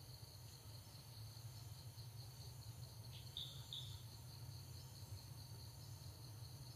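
Faint outdoor insect chorus, a steady pulsing high trill, over a low steady rumble, with two short high chirps about halfway through.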